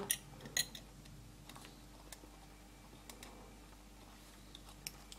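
Faint, scattered small clicks and taps of steel pliers and a resistor's wire lead being bent and set in place on a small plastic model wagon chassis, a few at a time, the most distinct near the start.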